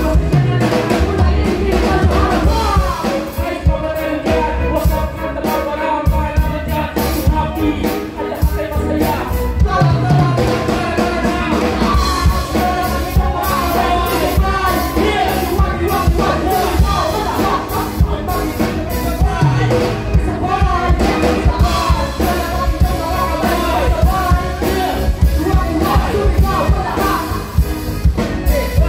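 Live hip-hop band performance over a PA: drum kit and keyboard keeping a steady beat while several rappers deliver vocals into microphones.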